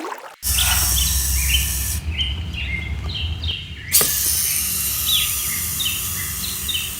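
Birds chirping in short, repeated notes over a steady background hiss and low hum. The sound drops away briefly and starts again sharply about four seconds in.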